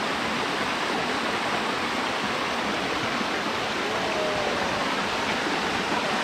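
Steady rush of a stream or river flowing over rocks, at an even level throughout.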